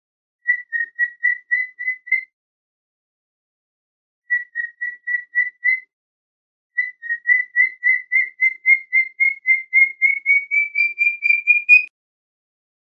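Cockatiel chirping: three runs of short, clear, whistle-like notes repeated about four to five times a second, the last and longest run slowly rising in pitch.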